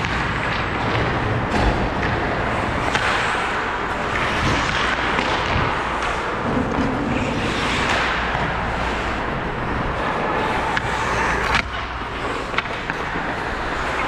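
Ice skate blades scraping and carving the ice in repeated strides, the noise swelling every second or two, with a few sharp clicks near the end.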